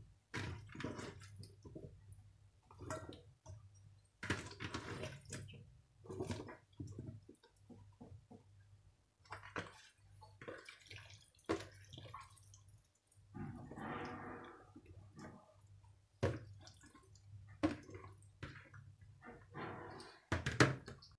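Oily, sauce-coated vegetable chunks being handled and dropped by hand into a steel bowl: irregular wet squelching and soft knocks, with runs of pieces tipped in from a plastic bowl.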